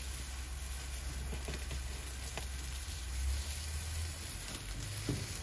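Yakitori skewers sizzling and crackling as they grill over a commercial gas-and-charcoal grill, over a low steady hum.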